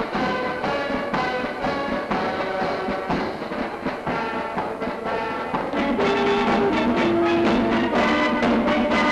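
Marine military band playing a march on brass and drums with a steady march beat, growing fuller with low brass notes from about six seconds in.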